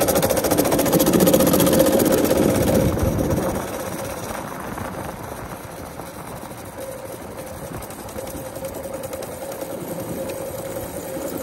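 Mini bike's small single-cylinder engine running hard, then easing to a quieter steady drone about three and a half seconds in.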